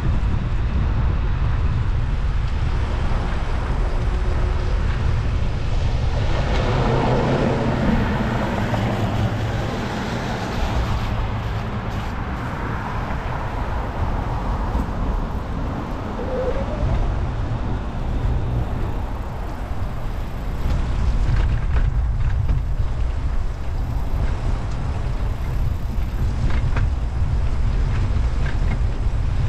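Wind rumbling on a camera microphone while cycling, with road traffic going by. A passing vehicle swells louder about seven seconds in.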